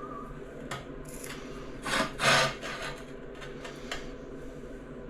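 A few short scraping rubs of something being handled on a hard surface, two louder scrapes close together about two seconds in; no grinder running.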